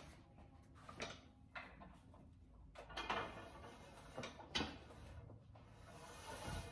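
Faint knocks and rubbing from a cable pulldown machine as its bar is taken hold of, with the cable and metal frame shifting, and a low thump near the end.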